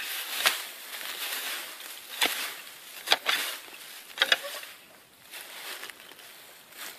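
A rake scraping through dry leaf litter and soil, with sharp knocks as it strikes the ground and buried objects: one about half a second in, one near two seconds, then two quick pairs around three and four seconds.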